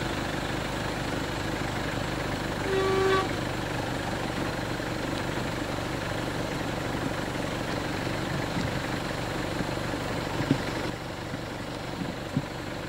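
A vehicle horn toots once, briefly, about three seconds in, over the steady running of a vehicle engine. A couple of faint knocks come near the end.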